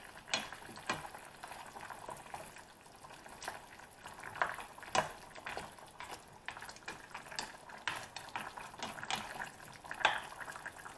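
A black spatula stirring turkey stew in a stainless steel pan: irregular scrapes and knocks of the utensil against the pan, over a faint bubbling of the simmering sauce.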